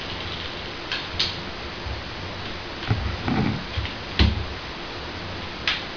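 Plastic screen bezel of a netbook lid being prised off by hand, its snap clips letting go in several sharp clicks and knocks over a steady hiss.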